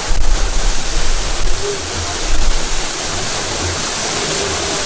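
A waterfall and river rushing with a steady, full hiss, with bursts of low rumble near the start and again about two seconds in.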